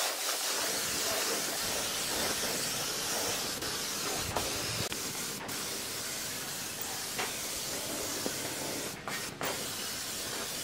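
Compressed-air gravity-feed spray gun spraying a finish coat onto a wooden table: a steady hiss of air and atomised finish, broken off briefly a couple of times near the end as the trigger is eased.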